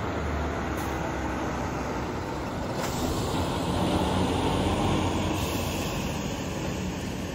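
Heavy-haulage truck tractor towing a multi-axle low-loader passing slowly: diesel engine running and tyres rolling. It grows louder to a peak about four seconds in, then eases off as it moves away.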